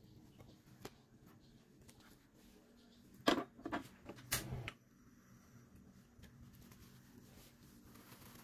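A small pan being set down on a gas stove's burner grate: a few short clattering knocks between about three and five seconds in, with faint room tone otherwise.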